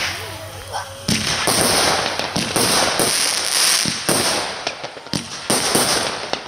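An 80-shot fan-cake firework battery firing: a sharp report at the start, then from about a second in a dense, continuous run of shots and bursts.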